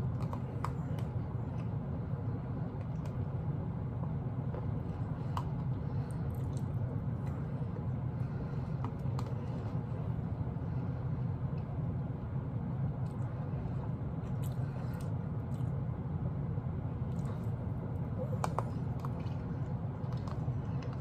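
Eating sounds: a spoon scraping and clicking in a small plastic cup, with quiet chewing, over a steady low hum.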